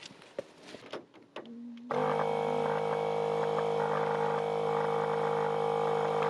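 A small electric air pump starts about two seconds in and runs with a steady, even hum, inflating a pack raft.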